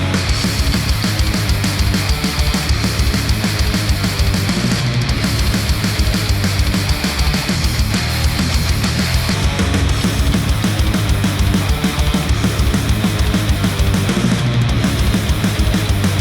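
Heavy rock/metal instrumental with a fast, driving drum beat, played through Sennheiser open-back headphones and picked up by measurement microphones on the earcups.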